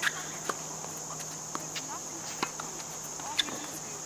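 Steady high-pitched buzz of insects in the surrounding trees, with a handful of short sharp knocks of tennis balls being struck and bouncing on the hard court, the loudest right at the start.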